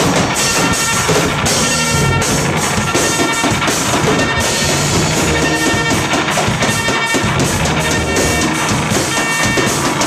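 Loud live band playing with a drum kit, dense and unbroken, with sustained tones that come and go over the beat.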